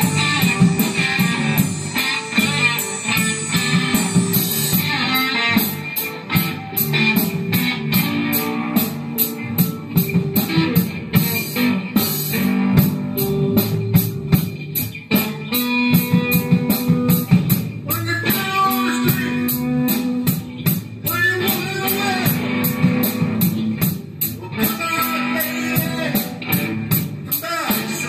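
A blues-rock band playing: electric guitar and bass guitar with keyboard over a Ludwig drum kit. The drums keep a steady beat from about five seconds in.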